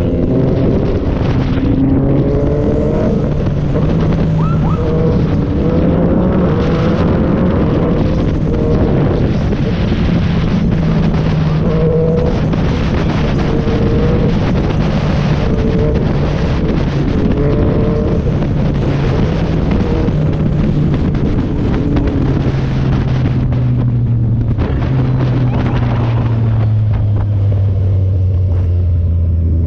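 Yamaha MT-09's three-cylinder engine running under way, its revs rising and falling, with wind rushing over the microphone. Over the last few seconds the engine note drops steadily as the bike slows.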